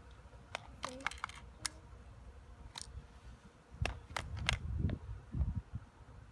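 Sharp clicks from handling a Bear River BOA CO2 BB pistol and its magazine: a quick run of clicks about a second in, then single clicks and three more around four seconds, with low rumbling underneath near the end.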